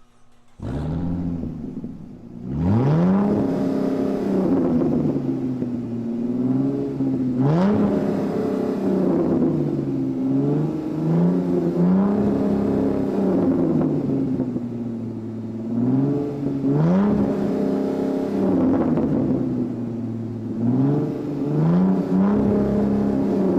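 A supercar's V8 engine starting up about half a second in, then revved several times, each rise in pitch held a moment before falling back to a lumpy idle.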